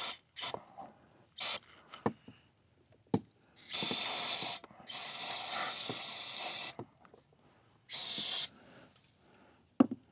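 Aerosol cleaner sprayed into a car's throttle body in three hissing bursts, the second the longest at about two seconds. Short clicks and knocks of handling come before the bursts and again near the end.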